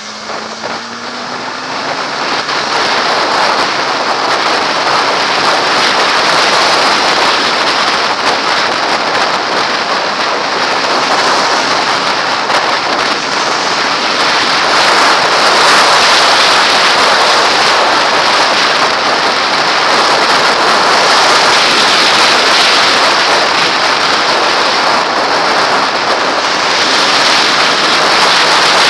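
Wind rushing over a helmet-mounted camera as a Kawasaki ZX-6R sport bike picks up speed on a highway, with the bike's inline-four engine faint beneath it. The rush grows louder over the first few seconds, then holds steady.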